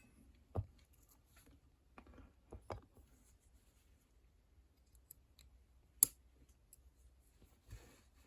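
Lock-picking tools being fitted into a lever padlock: a few faint, scattered metal clicks and light scrapes, the sharpest click about six seconds in.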